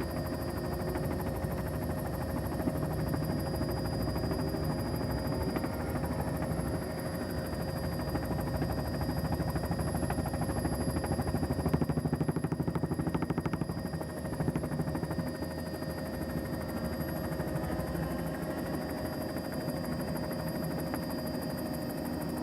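Holden Commodore race car engine running hard at speed, a continuous rapid engine pulse that swells a little louder about halfway through.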